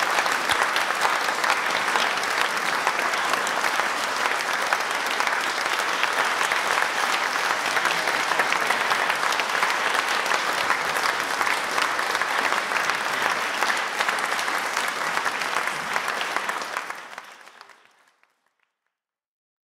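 Audience applauding steadily after a choir's song, then fading out to silence near the end.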